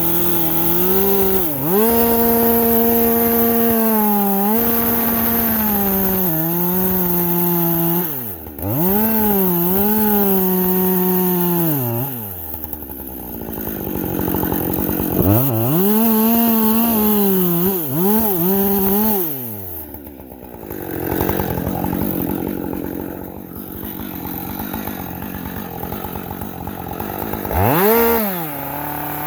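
Husqvarna two-stroke chainsaw cutting acacia at high revs. Its pitch sags each time the chain bites into the wood and climbs back as it frees, several times over.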